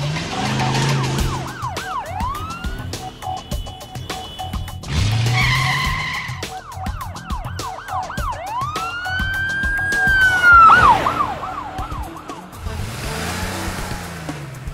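Cartoon police siren wailing in quick rising-and-falling sweeps, with one long swell about ten seconds in. Car engines rev and tyres skid near the start and about five seconds in, over background music.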